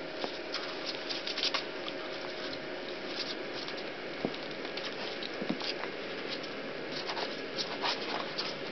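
Rat Terrier puppies scrambling and nursing on towels and a plastic pool: a run of small, irregular clicks and scratches over a steady hiss.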